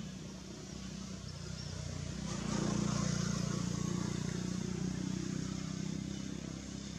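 A motor vehicle's engine running, getting louder about two and a half seconds in and easing off near the end, as if it passes close by.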